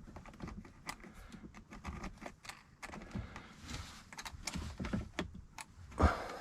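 Small metal clicks and taps of a washer, nut and lead being fitted by hand onto a leisure battery terminal, with one louder knock about six seconds in.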